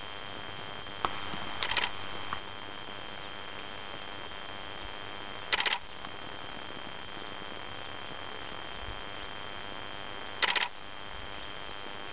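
Camera shutter firing in three short rapid bursts: about a second in, at about five and a half seconds, and near ten and a half seconds. Between bursts there is a steady hiss with a thin high steady tone from the recording camera.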